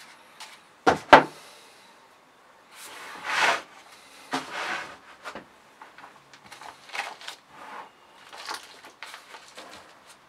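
Two sharp knocks about a second in as items are set down on a plastic potting tray. Then hands scoop and rustle loose compost, scraping it across the tray and into a small plant pot in several uneven bursts.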